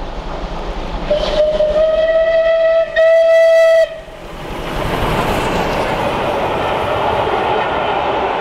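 Steam locomotive whistle blowing one long blast with a brief break just before the end, then the loud steady rush of the train running past.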